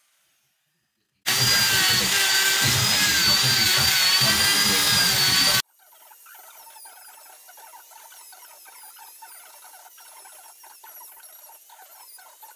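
A hand-held electric chainsaw cutting into the wood, a loud whine that wavers in pitch, for about four seconds. It stops abruptly, and a rotary die grinder with a carving burr takes over, grinding the wood much more quietly, its whine dipping briefly again and again.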